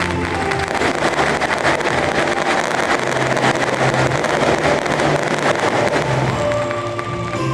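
Fireworks barrage: a dense, continuous run of crackles and bangs, with stadium music faintly underneath.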